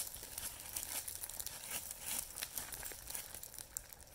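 Plastic dog-waste bag crinkling and rustling as it is pulled out and opened by hand, an irregular crackle that fades near the end.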